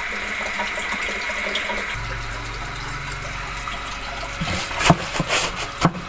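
Water running from a pump-fed outlet into a can, filling it. About two seconds in, the sound shifts and a low hum comes in, and a few sharp knocks come near the end.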